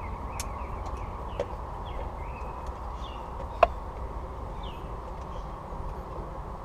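A few sharp clicks of plastic battery-tray clips being worked loose, one loud click a little past halfway. Faint bird chirps sound over a steady low background rumble.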